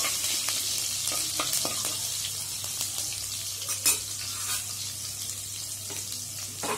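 Chopped green chillies and cumin seeds sizzling in hot oil in a pan, a steady frying hiss that fades slightly, being fried till browned. A few sharp clicks of a spatula stirring them, the loudest about four seconds in.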